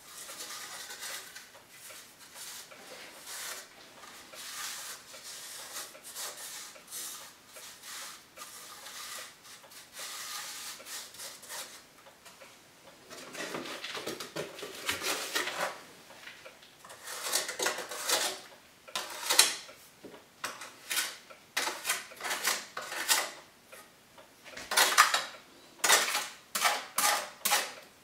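A hand working inside a black steel stove pipe, rubbing and scraping against the metal. The first half is soft continuous rubbing. The second half is louder, a run of sharp scrapes about one or two a second.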